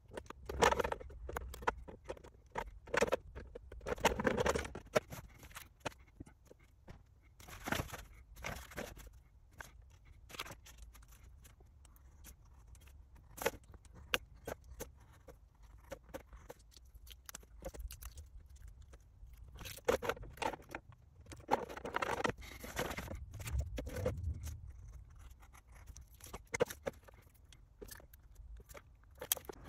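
Hands working on small plastic parts of a radio-control model car: scattered sharp clicks and taps, with a few short stretches of rustling and scraping.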